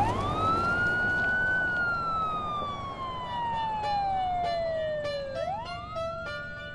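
Police car siren wailing: one quick rise, a long slow fall of about four seconds, then a second rise near the end. Plucked-string music comes in over it in the last second or so.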